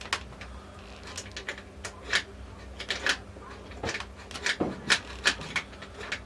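Steel overdrive parts clicking and knocking against each other as they are handled, about fifteen irregular sharp clicks over a steady low hum.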